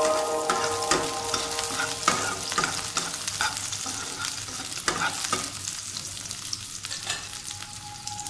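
Onion, garlic and dried red chillies sizzling in mustard oil in a nonstick wok while a metal spatula stirs them, with irregular scrapes and taps of the spatula against the pan. The sizzle and stirring grow quieter toward the end.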